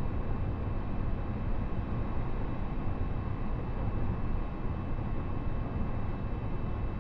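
Inside the car of a JR East E531 series electric train at speed: a steady rumble of wheels on the rails, with a faint steady whine above it.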